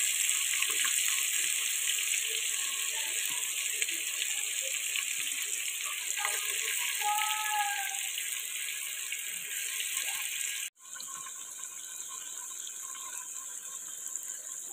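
Marinated chicken sizzling in hot oil in a clay handi, a steady hiss as the pieces go into the fat. The sound cuts out for an instant about ten and a half seconds in, then carries on a little quieter.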